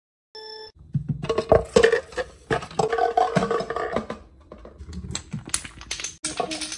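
Wooden Jenga blocks and a small ball clattering as a homemade chain-reaction machine runs: a string of irregular clicks, clacks and knocks.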